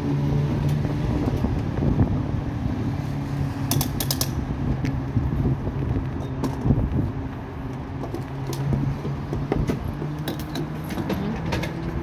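Petrol pump nozzle being handled and a car's fuel door opened: scattered sharp clicks and knocks, a cluster of them about four seconds in, over a steady low hum.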